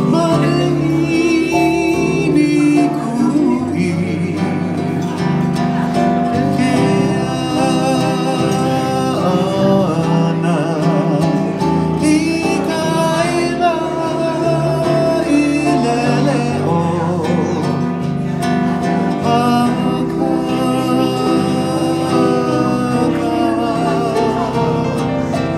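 Live acoustic guitar and electronic keyboard playing a Hawaiian song together, with continuous held and gliding melody notes over a steady bass line.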